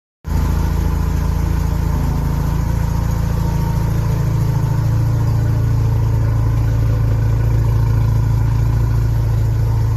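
Mazda RX-7 FC's 13B two-rotor rotary engine idling steadily.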